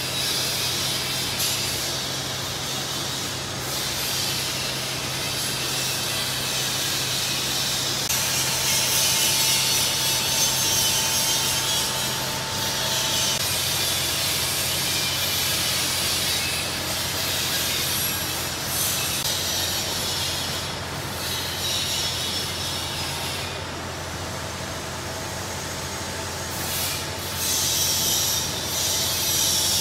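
Automatic double-wire chain link fence machine running: a steady motor hum under the scraping, rubbing sound of steel wire being bent and woven into diamond mesh, which swells and eases several times.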